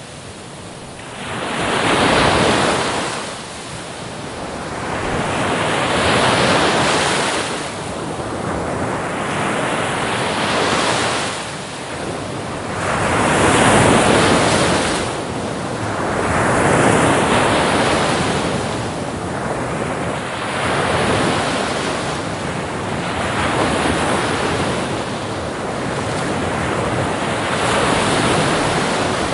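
Sea waves breaking on a shore, the surf swelling and falling back in repeated surges about every three to four seconds.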